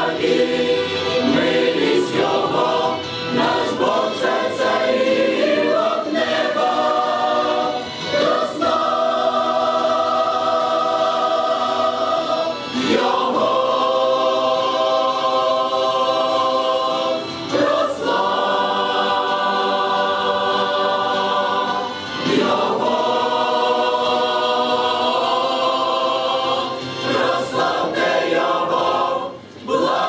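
Mixed choir of men's and women's voices singing a hymn in Ukrainian, in long held chords broken by short breaths every four to five seconds.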